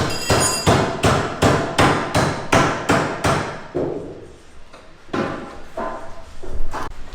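Hammer striking metal in quick, even blows, about three a second, then a pause and a few slower, lighter knocks near the end.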